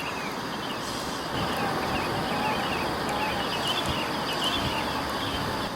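Steady hiss of heavy rain with many short, high chirping calls of small animals running through it.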